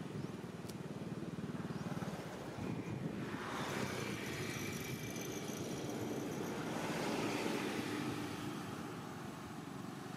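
A motor vehicle passing by: its engine and road noise swell from about three seconds in and fade away near the end, over a steady low rumble.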